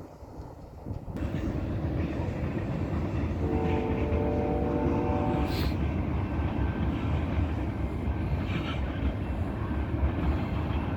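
Low, loud rumble of a heavy vehicle passing, swelling about a second in and holding steady, with a held chord-like tone sounding for about two seconds near the middle.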